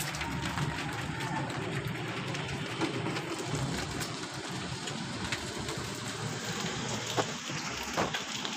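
Steady rain falling on a concrete enclosure, an even hiss with a few sharper drips or taps now and then.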